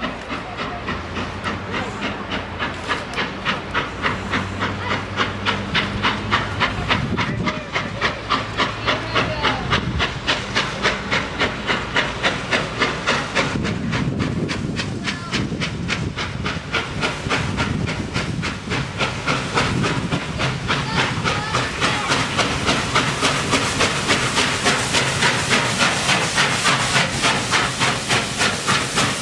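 Norfolk and Western 611, a J-class 4-8-4 steam locomotive, approaching under power: a steady rhythm of exhaust chuffs, about four a second, with hissing steam. The beats grow steadily louder as the engine comes up and passes close.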